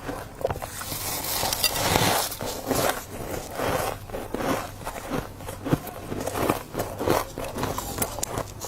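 Dry freezer frost being bitten and chewed, a close, irregular run of sharp crunches and crackles, densest about two seconds in.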